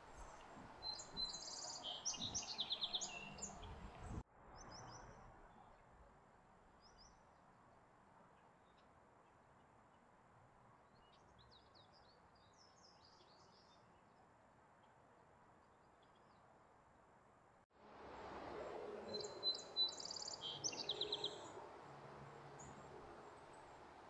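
Birds chirping in quick, high-pitched bursts, most busily in the first few seconds and again about two-thirds of the way through, with only a few faint chirps in the quieter stretch between. The sound cuts off abruptly at about four seconds in and starts again just as abruptly near eighteen seconds.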